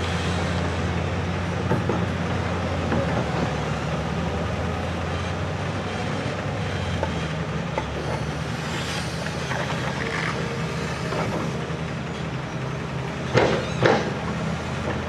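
Heavy diesel machinery running steadily at a construction site, with a low engine drone throughout. Two loud knocks come close together near the end.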